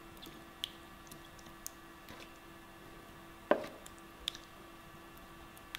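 Wooden spoon spreading and dabbing thick chili spice paste over a whole fish on a banana leaf: soft wet squishes and a few light taps, the loudest a knock about three and a half seconds in. A faint steady hum sits underneath.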